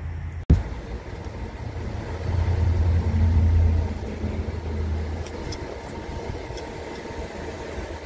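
A small engine idling steadily with a low hum that swells for a couple of seconds around the middle. About half a second in, the sound drops out briefly and comes back with a click.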